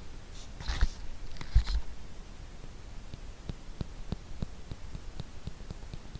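A sticky cotton swab rubbing and scraping in an ear microphone. Two louder rustling strokes come about a second in, followed by a run of small crackles and clicks.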